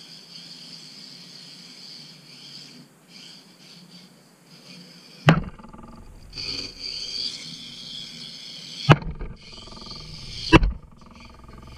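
High-pitched whine of a Kyosho Mini-Z RC car's small electric motor and gears, rising and falling as it drives and drifts. Three sharp knocks cut through it, about five, nine and ten and a half seconds in.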